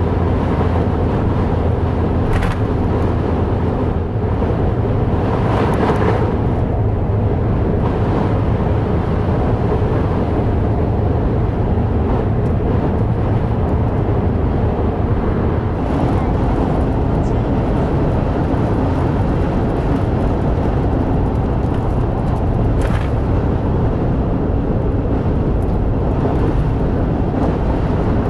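Steady road and engine noise of a Daihatsu Wake kei car driving at speed, with a low rumble. A few brief whooshes rise above it at about two, six, sixteen and twenty-three seconds in.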